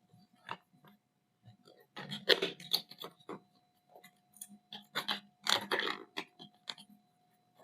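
Product packaging being handled and opened: irregular rustling and clicking, in two denser flurries about two and five seconds in.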